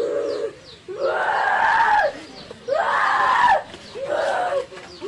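A teenage girl screaming in four cries, the two in the middle long and drawn out, the first and last shorter.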